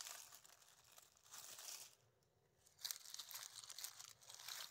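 Faint rustling and crackling of dry leaf litter being handled, in a few short spells with near silence between.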